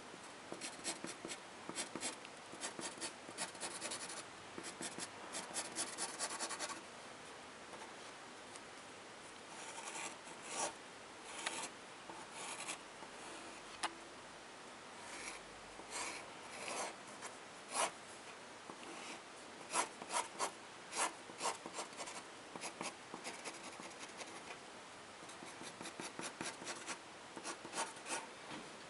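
Fine-tip pen scratching across paper in quick hatching strokes. A dense run of strokes for the first several seconds, a pause, then scattered single strokes that quicken again near the end.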